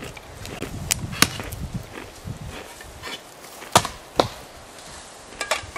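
Axe chopping firewood: a series of sharp wooden strikes, the loudest about a second in and twice more near four seconds.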